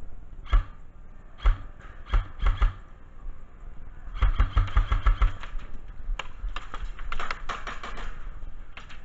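An airsoft electric rifle, a G&G CM16 Raider, firing: a few single shots, each a sharp click with a deep gearbox thump, then a short full-auto burst of about eight shots about halfway through. Lighter, quicker clicks follow.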